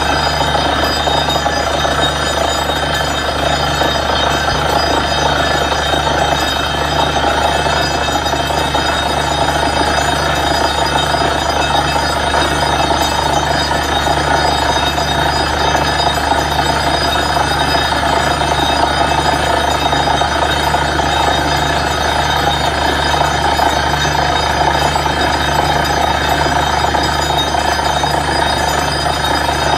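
Truck-mounted borewell drilling rig running steadily while it drills, its engine and air-flushing system blowing wet cuttings out of the hole. A constant dense mechanical noise with a low drone and a regular pulsing beat.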